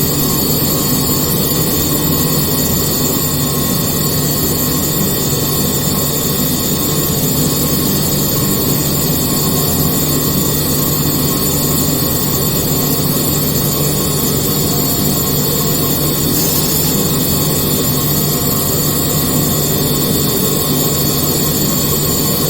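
Haas VF-series vertical machining centre running a CNC milling job: a steady, loud machine noise with several constant tones over a hiss, unchanging throughout.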